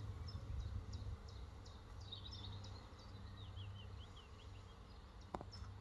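Small birds chirping in short, repeated high notes with a brief warble, over a steady low hum from the honeybees of an open hive. A single sharp click near the end.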